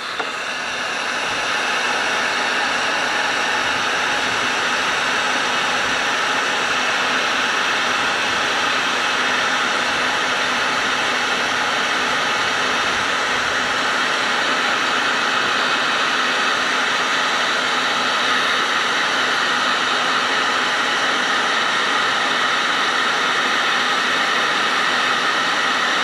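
Electric heat gun running steadily, its fan blowing an even rush of hot air to shrink heat-shrink tubing over crimped wire connectors.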